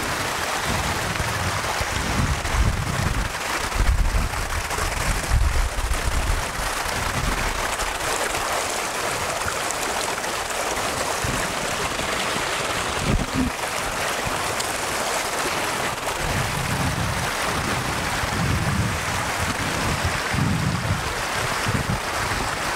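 Shallow stream running over rocks, a steady rush of water. Wind rumbles on the microphone in the first few seconds and again near the end.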